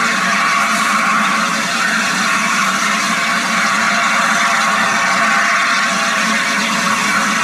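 Steam locomotive 60163 Tornado, an LNER Peppercorn A1 Pacific, standing with a loud, steady hiss of escaping steam that has a few steady tones in it and no exhaust beats.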